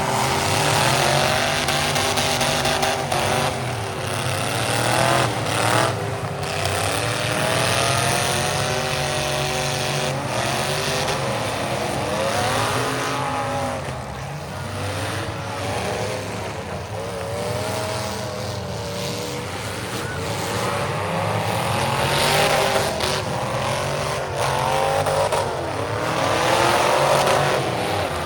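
Several demolition derby cars' engines revving hard and dropping back at once, their pitches rising and falling over one another, with a few sharp bangs of cars hitting each other.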